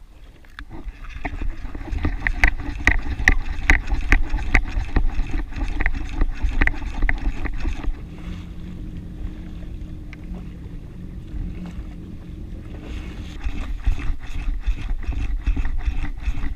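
Water lapping and slapping against the hull of a drifting Yamaha WaveRunner FXHO jet ski, with wind buffeting the microphone. A run of sharp clicks and knocks comes through the first half and again near the end.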